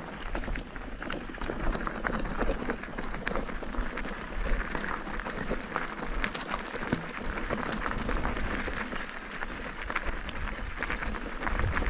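Mountain bike riding over a rough dirt and gravel trail: a steady rush of tyre and trail noise with frequent sharp clicks and rattles from the bike.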